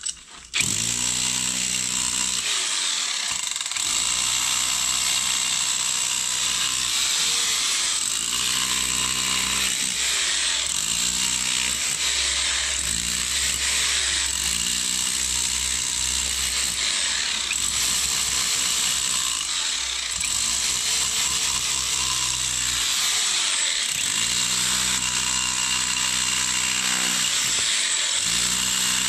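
Electric hammer drill running continuously against the old concrete foundation, chipping it away. It starts about half a second in and carries on at a steady level without pause.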